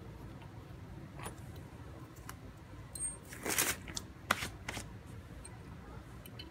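Hands handling a clutch master cylinder assembly and small metal parts: a few light clicks and taps, with a short rustle about three and a half seconds in.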